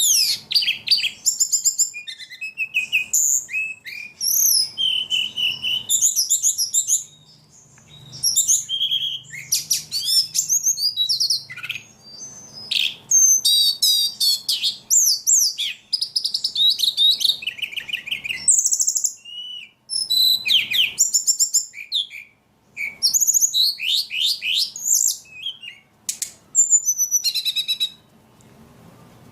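Caged ledekan songbird singing at full volume: bursts of rapid, varied high chirps and trills, each a few seconds long, broken by short pauses.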